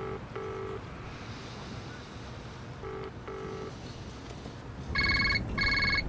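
British telephone ringing tone heard down the line: a double burr, twice, as a call goes through. About five seconds in, an Ericsson mobile phone starts ringing with two loud, high electronic rings.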